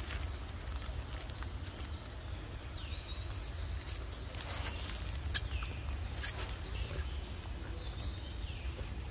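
Outdoor forest ambience: a steady high-pitched insect drone with a few faint, falling bird calls, two sharp clicks about halfway through, over a low steady rumble.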